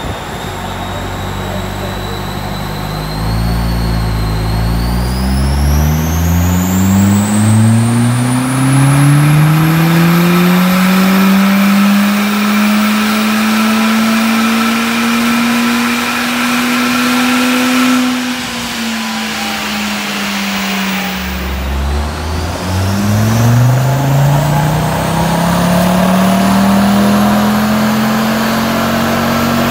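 A car engine pulled up through its rev range under load, as on a dyno run, twice. Each time the pitch climbs slowly and holds high, with a high whine rising alongside, and it drops back for a few seconds between the two pulls.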